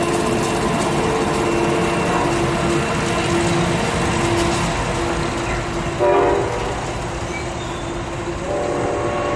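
SEPTA ALP44 electric locomotive pushing a commuter train away, with a steady hum under rolling train noise. A train horn sounds a short blast about six seconds in and a longer blast near the end.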